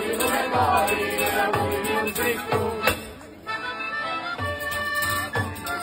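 Traditional Sicilian folk music playing with a steady beat and a running melody. It dips quieter briefly about three seconds in.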